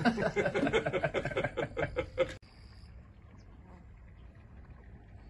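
A man's voice for about two seconds that cuts off suddenly, followed by a faint, steady outdoor background.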